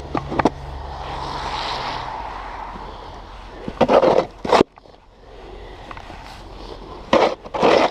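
Snow shovel scraping and pushing across pavement in short strokes, in groups near the start, around four seconds in and near the end, over a steady low rumble that cuts off abruptly about halfway through.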